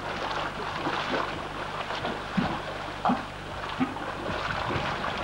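Steaming collapse crater in a geothermal field: a steady hissing rush, with three short gurgling pops in the middle, less than a second apart.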